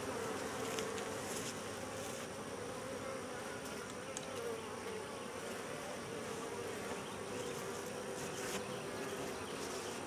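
Honey bees buzzing over an opened Langstroth hive box: a steady hum with a slightly wavering pitch, and a few faint ticks.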